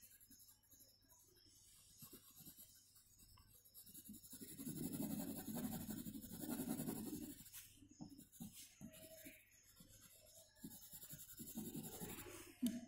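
Faint scratching and rubbing of a pencil on drawing paper as shading is added, in two spells: one about four seconds in and a shorter one near the end.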